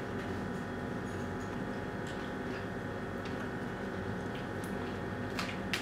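Steady room hum made of several constant tones, with a few faint clicks and two sharper clicks near the end.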